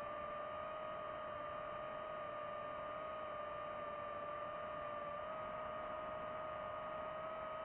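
FPV drone's electric motors and propellers whining at a steady pitch over a hiss of rushing air, heard from the drone's own onboard camera; the pitch steps up slightly about five seconds in.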